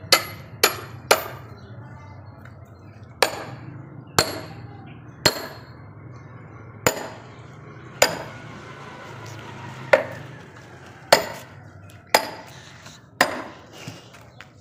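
Hammer striking a steel wedge driven into a log to split firewood: about a dozen sharp metallic blows, roughly one a second with a few longer pauses, each with a brief ring.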